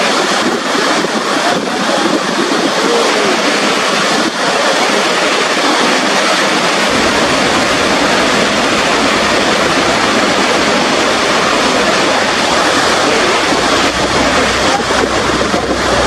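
Loud, steady rush of Niagara Falls' water plunging over the brink. About seven seconds in, the sound changes to the churning river below the falls, with a low rumble added underneath.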